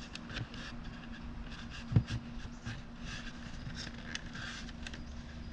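Hands handling the lathe's parts and cover panel: light scrapes and scattered small clicks, with one knock about two seconds in, over a steady low hum.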